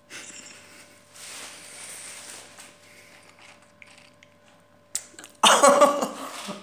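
A person with a mouthful of salted sunflower seeds breathing and making small mouth noises, then coughing loudly about five seconds in.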